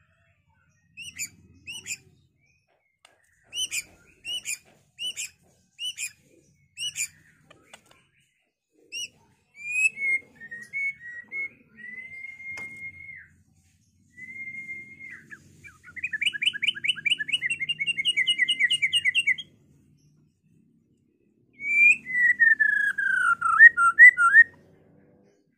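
A white-rumped shama singing in full, varied song: a run of short chirps, then clear sustained whistles, a fast trill lasting about three seconds, and near the end a falling whistle ending in quick flourishes, with short silent gaps between phrases.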